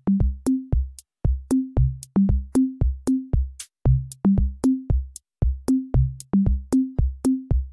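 Electronic outro music: a quick drum-machine beat with short bass notes under it and no singing.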